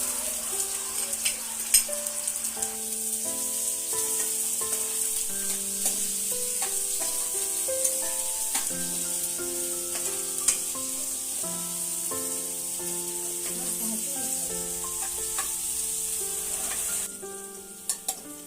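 Chopped onions frying in hot oil in a kadhai: a steady sizzle with occasional clicks and scrapes of the spoon stirring, over a soft background melody. The sizzle dies down about a second and a half before the end.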